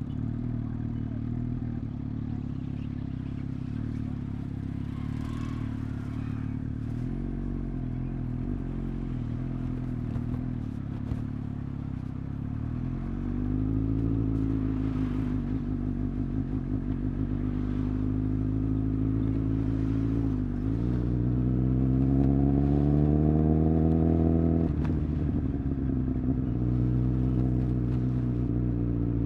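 Suzuki GSX-S1000's inline-four engine running under way. The revs are fairly steady at first, climb from about a third of the way in, dip briefly about two-thirds in and climb again, then drop as the throttle closes near the end.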